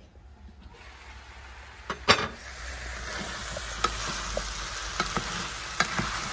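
Diced potatoes, peas and meat sizzling as they sauté in a stainless steel pan, stirred with a wooden spoon that knocks and scrapes against the pan. The sizzle is faint at first and grows louder after a sharp knock about two seconds in, with a few lighter clicks later.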